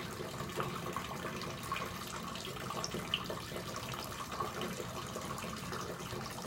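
Water trickling steadily through a small acrylic meandering-river flow model fed by a hose at 1.65 litres a minute, with many small drips and splashes over a steady low hum.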